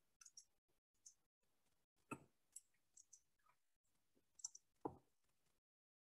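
Near silence broken by faint, irregular clicks at a computer, about eight in all.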